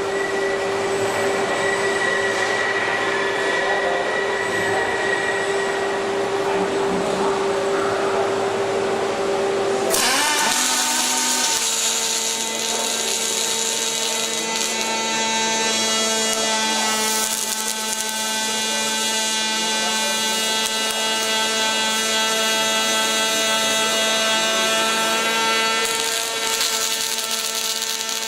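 Industrial machinery in a robotic welding cell running with a steady motor whine and hiss. About ten seconds in, the sound changes abruptly to a different motor note that rises briefly, then holds steady.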